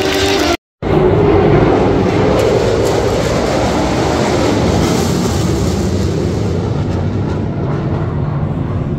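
Steady, loud rumble of a vehicle, starting abruptly after a brief drop-out under a second in and holding even through the rest.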